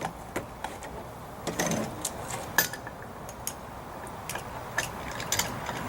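Scattered light clicks and knocks of a compressed-air bottle being set into the mount of a compressed air foam fire-suppression unit, with a short cluster of knocks about one and a half seconds in and again near the end.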